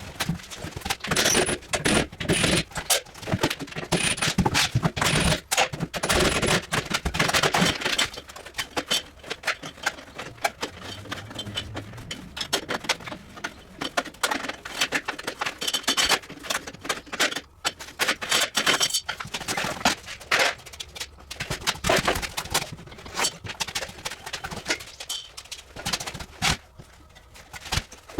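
Irregular clatter of hand work on metal parts: dense knocks, clicks and scraping with short pauses, from the dismantling of a walk-in refrigerator's cooling unit.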